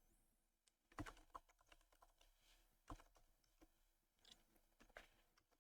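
Faint, irregular keystrokes on a computer keyboard: typing code, with louder clicks about one, three and five seconds in.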